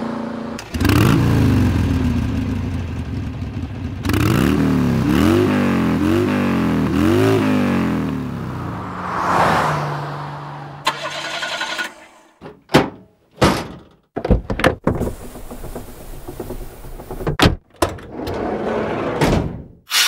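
A montage of car sound effects. An engine starts and revs about a second in, then accelerates hard through several gears with repeated rising engine pitch, and a car passes by. After a short idle comes a run of separate sharp thunks and clicks.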